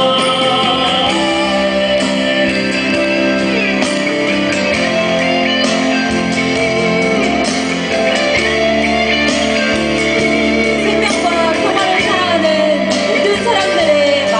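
A live band performing a song: singing over instrumental backing.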